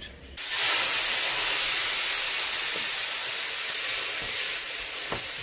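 Raw diced chicken sizzling in a hot non-stick frying pan as it is stirred with a wooden spatula. The sizzle starts abruptly just after the start and slowly fades.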